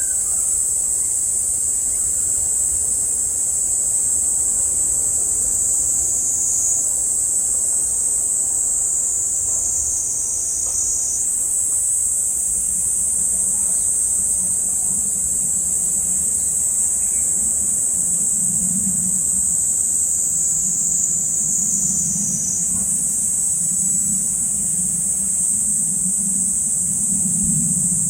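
Cicadas shrilling in a dense, unbroken chorus, a steady high-pitched buzz that now and then slides upward in pitch over a second or two. A low, pulsing rumble joins about twelve seconds in.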